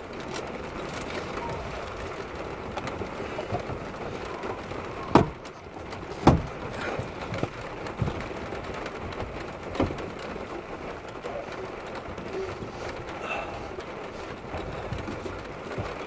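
Storm rain falling steadily, heard against window glass: a constant hiss broken by a few sharp knocks between about five and ten seconds in.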